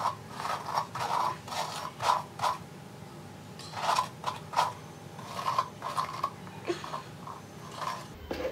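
Detangler brush drawn through long wet hair in quick repeated strokes, about two a second, each stroke a short scratchy rub as the bristles work out knots. The strokes pause briefly about three seconds in, then carry on.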